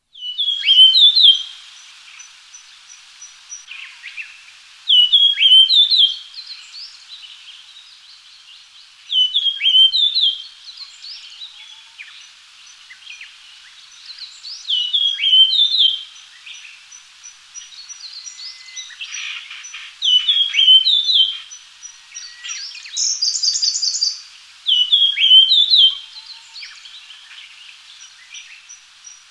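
Japanese grosbeak singing: a short phrase of clear, sliding whistled notes, repeated six times at intervals of about five seconds. About two thirds of the way through there is a quick burst of higher, rapid notes, and a faint high ticking continues in the background.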